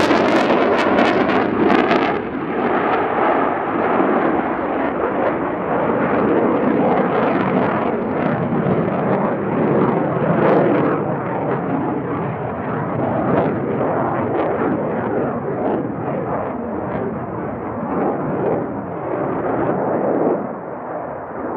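F/A-18C Hornet's twin General Electric F404 jet engines at full power with afterburner, a loud, rough, crackling jet noise. The high hiss drops away about two seconds in as the jet climbs off, and the noise eases slightly near the end.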